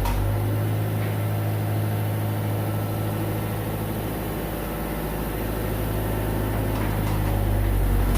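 Engine running at a steady speed, a low even hum that shifts slightly in pitch about half a second in.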